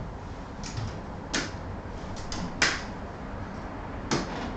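Aluminium underarm crutches and a walking cast knocking on a hardwood floor as someone crutches along: about five sharp, uneven knocks.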